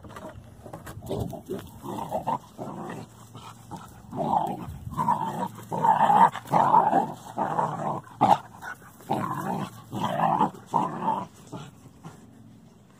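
German Shorthaired Pointer puppy making a series of short growly vocal sounds with a tennis ball in its mouth, loudest about six seconds in.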